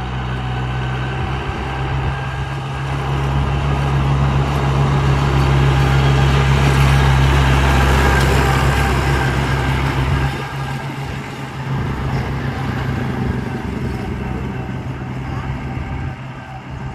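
International 454 tractor engine running at road speed as the tractor approaches with its load of stone, growing louder to a peak about seven to nine seconds in. About ten seconds in it drops away sharply as the tractor passes, leaving a fainter engine sound.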